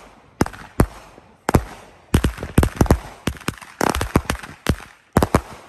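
Magnus Fireworks 'Pitbull' 16-shot 200 g consumer cake firing: a rapid run of sharp bangs, several a second and often in quick pairs, with crackle between them. The bangs stop shortly before the end.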